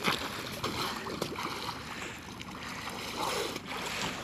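Splashing of a swimmer's front-crawl arm strokes, coming in irregular splashes over a steady wash of water.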